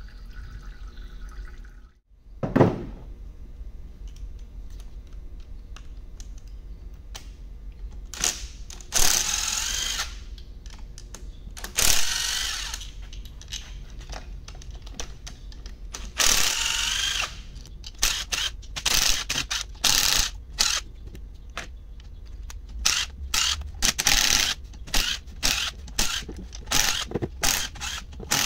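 Cordless drill backing out the oil pan bolts of a Yamaha jet-ski engine: three whirring runs of about a second each, then many short quick trigger pulls in the last ten seconds. A single loud knock comes a couple of seconds in.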